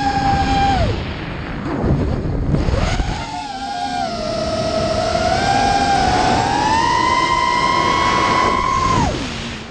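FlyingCinema X24 FPV drone's electric motors and propellers whining, heard from its onboard camera. The whine drops about a second in as the throttle comes off, leaving a rush of air, then returns near three seconds, climbs slowly in pitch and falls away sharply near the end.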